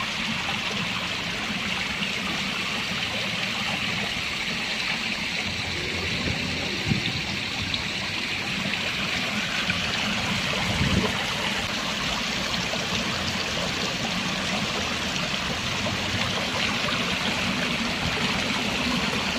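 Station fountain's water spilling in many thin streams down a stone wall and splashing into its basin: a steady rushing patter.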